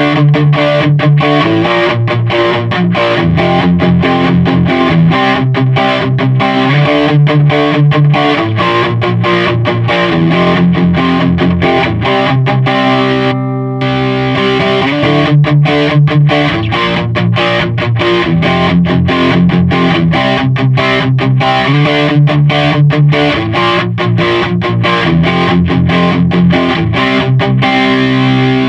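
Electric guitar played through an overdrive pedal: a repeating chord riff picked in quick, even strokes, with a short break about halfway through.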